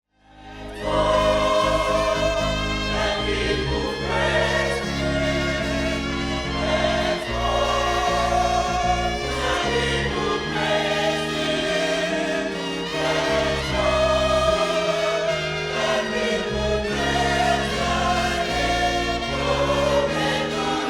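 Gospel choir singing over sustained bass and keyboard chords, fading in over the first second.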